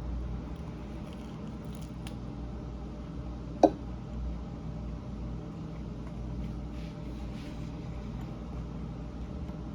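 Close-miked chewing of meat, wet and squishy, over a steady low hum. A single brief sharp sound about three and a half seconds in is the loudest thing.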